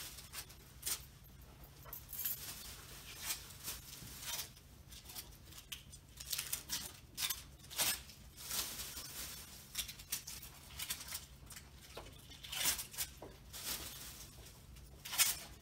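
Plastic bag crinkling and tape being peeled off a door in irregular short crackles, as taped-on pizza rolls are pulled off and bagged. A steady low hum runs underneath.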